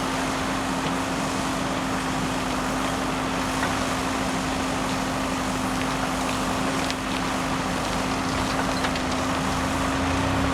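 Heavy diesel engine running steadily at constant speed, with a steady droning hum.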